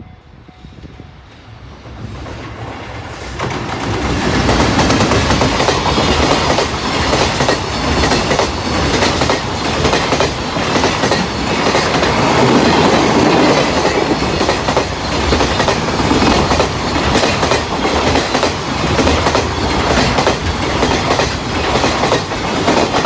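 Freight train hauled by a JR Freight EH500 'Kintaro' electric locomotive passing close by: it grows louder over the first few seconds, then a long steady run of wheel clatter over rail joints as the wagons roll past.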